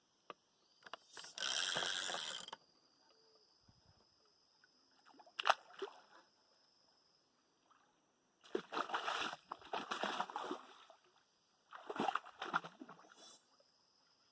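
Water splashing and sloshing in several separate bursts: a longer one about a second in, a short sharp one in the middle, and two longer runs in the second half.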